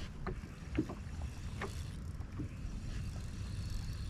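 Small fishing boat on the water: a steady low wind rumble and water lapping at the hull, with a scatter of light clicks and knocks.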